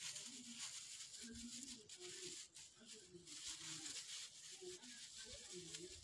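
Faint rustling and tearing of dry plant material being pulled apart by hand as tinder for a sawdust stove, over a steady hiss, with short faint distant calls now and then.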